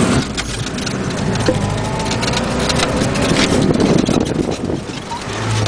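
Russian van driving over rough ground: a steady rush of road and wind noise with the body and fittings rattling and knocking irregularly throughout.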